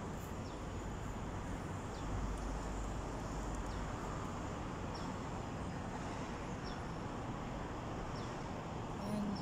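Steady outdoor city background noise, with a few short high bird chirps one to three seconds apart.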